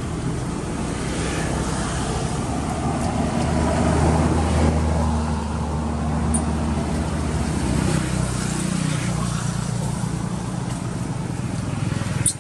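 Motor vehicle engine running, a steady low hum that swells for a couple of seconds about four seconds in. A short sharp click near the end.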